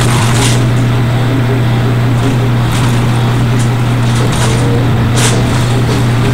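Industrial sewing machine motor humming steadily at one low pitch, with several brief hissy noises over it as vinyl pieces are sewn together.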